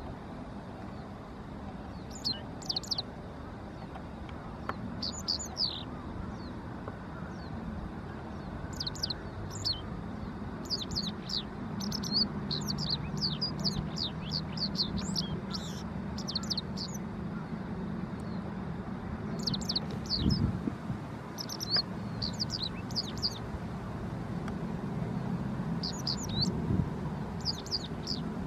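Japanese wagtail singing: phrases of quick, high chirping notes separated by short pauses, most rapid and continuous around the middle. A low steady rumble runs underneath.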